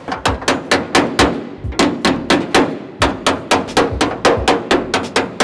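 Rapid hammer blows on the bare sheet-steel body shell of a Toyota AE86 Trueno, about four a second, each ringing briefly, as rusted metal is chopped out around small holes.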